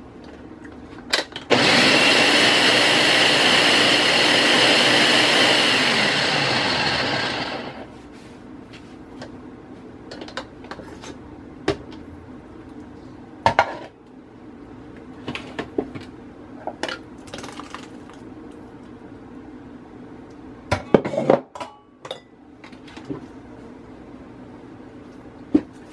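Ninja countertop blender running for about six seconds, puréeing boiled tomatoes, then winding down. Scattered light clicks and knocks follow, with a cluster of louder knocks near the end.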